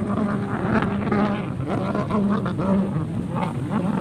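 Jet ski engines droning out on the water with a wavering hum, mixed with people's voices close by.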